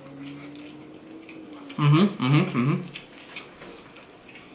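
A man humming with his mouth full while chewing: a long low "mmm", then about two seconds in a louder run of short rising hums of approval, followed by faint chewing.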